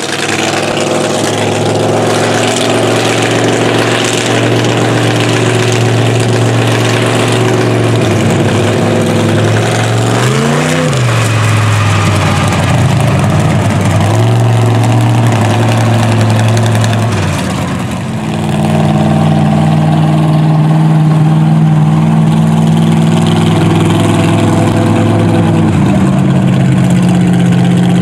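Mega truck's engine running. It revs up and back down about ten seconds in, then settles at a higher steady pitch a little past halfway.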